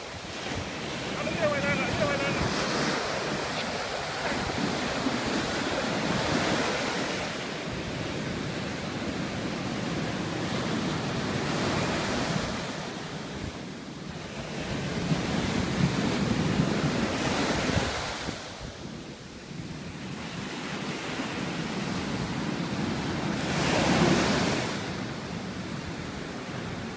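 Ocean surf breaking and washing up the beach in repeated surges that swell and fade every few seconds, the loudest near the end, with wind buffeting the microphone.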